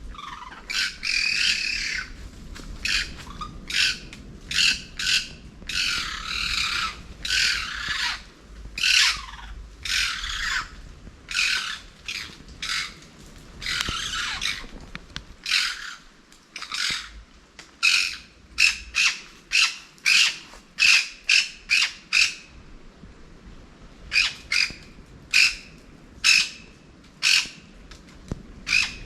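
A bird calling over and over in harsh, grating squawks. Some calls are drawn out, others short and clipped in quick series of roughly one to two a second, with a brief pause about two-thirds of the way through.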